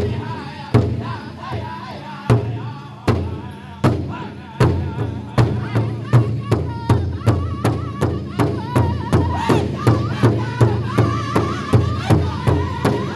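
Powwow big drum: a group of drummers striking a large hide drum in unison while singing high-pitched over it. The beat starts a little under a second apart and gradually quickens to about three strikes a second.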